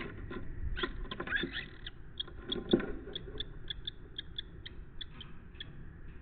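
Lesser kestrels in a gravel-floored nest box: scuffling and scratching, with a thump, as a bird comes in. Then a run of short, high calls, about three a second, as the male passes a mole cricket to the female.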